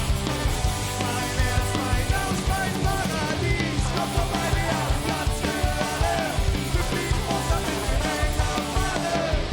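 Ska-punk band playing live: drums on a steady beat under guitars and bass, with a melody line on top between sung lines of the song.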